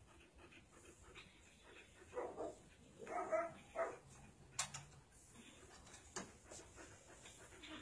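A dog whimpering faintly, a few short whines about two to four seconds in, with a couple of soft clicks later.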